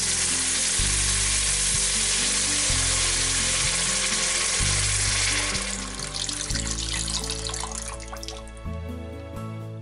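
Water poured from a kettle into a hot pot of frying onion, chicken and paprika: a loud sizzling hiss as the water hits the hot pan, easing after about five and a half seconds to a softer pouring sound. Background music plays underneath.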